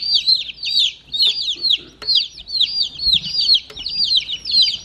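A brooder full of baby chicks peeping continuously: many high chirps overlapping, several a second, each falling in pitch.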